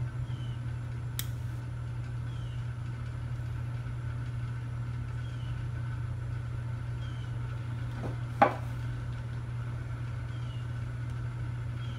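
Steady low machine hum, with faint short high chirps recurring every second or two. A light click comes about a second in, and a sharp, louder click about eight seconds in.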